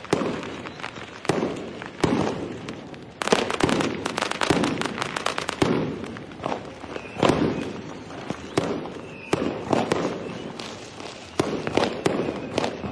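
Diwali firecrackers going off in irregular sharp bangs, with a rapid string of crackling pops about three seconds in that lasts a couple of seconds.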